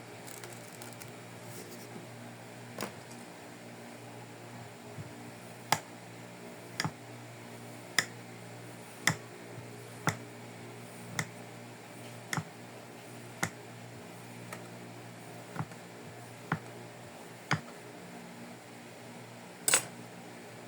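Kinetic sand being sliced with a knife: about a dozen sharp clicks, roughly one a second, each cut ending on the surface beneath, the loudest near the end. A steady low hum runs beneath.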